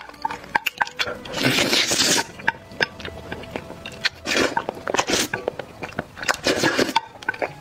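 Spicy instant noodles in sauce slurped off chopsticks: four wet slurps, the first and longest about a second and a half in, with chewing and lip smacks between them.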